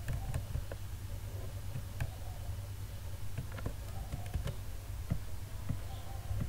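Irregular clicks of a computer mouse and keyboard, a dozen or so scattered through, over a low steady hum.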